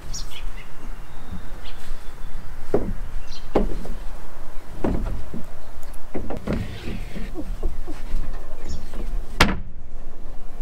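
A series of irregular knocks and thumps, spaced about a second apart, with the sharpest knock near the end.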